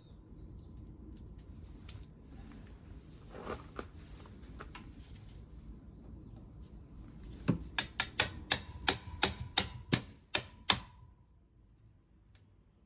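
A run of about a dozen sharp metal-on-metal taps, three or four a second, each with a short ringing tone, from tool work on a scooter engine.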